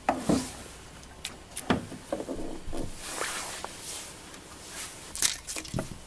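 Scattered light clicks and rustles of hands handling a car indicator bulb and its plastic bulb holder, with a few sharp ticks near the start, a couple more around a second and a half in, and a small cluster near the end.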